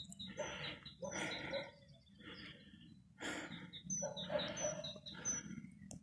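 Birds chirping in short high notes over a louder rough animal call repeated about once a second.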